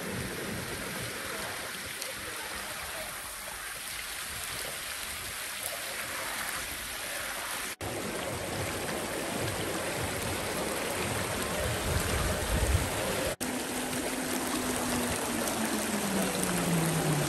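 River rapids: a steady rush of water pouring over rocks in a shallow river, breaking off for an instant twice. Near the end a low hum slides steadily down in pitch beneath the rush.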